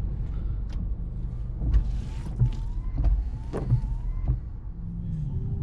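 Steady low rumble of a car running, with a handful of knocks between about two and four seconds in.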